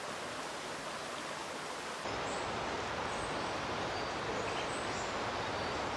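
Steady rushing outdoor ambient noise in the bush, louder from about two seconds in, with a few faint high chirps.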